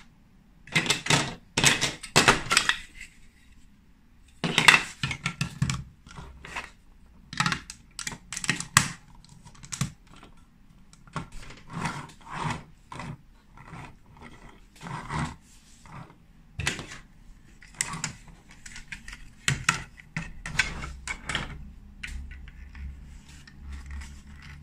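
Plastic Lego Duplo bricks and plates clicking and clattering as they are handled and pressed together, in irregular clusters of sharp clicks. A low rumble joins in the last few seconds.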